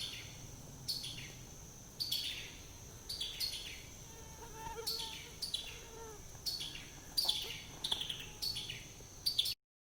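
Summer forest sound: a steady high insect drone, with a bird calling over it in short downward-sliding notes about once a second. The sound cuts off suddenly near the end.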